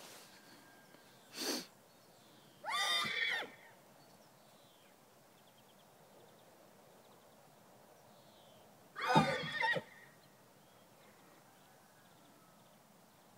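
An Andalusian horse neighing twice in short, wavering calls while facing his own reflection in a mirror, the second call the louder, with a brief noisy burst just before the first.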